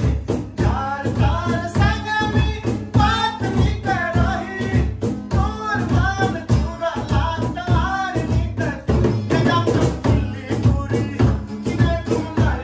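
Surjapuri folk song performed live: a male voice sings the melody over acoustic guitar, while a hand-played barrel drum and a cajon beat a steady, quick rhythm.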